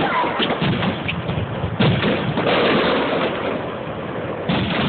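Aerial fireworks bursting: a sharp bang about two seconds in and another near the end, over a continuous dense crackle of many small reports.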